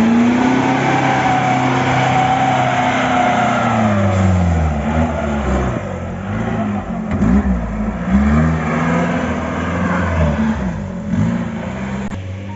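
Mahindra 4x4 jeep engine revving hard while it works up a muddy off-road slope. The revs are held high for the first few seconds, then blipped up and down again and again as the driver works the throttle.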